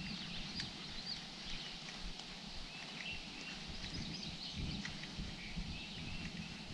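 Many small birds chirping and calling at once, in short quick notes that rise and fall in pitch, over an irregular low rumble.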